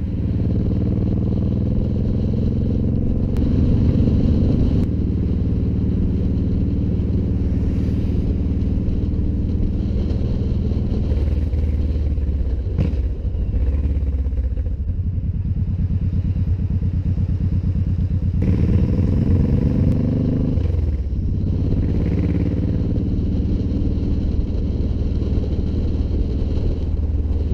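Suzuki Boulevard cruiser motorcycle's engine running while under way, loud and close. The engine note shifts a few seconds in and again about two-thirds through, as the rider changes speed.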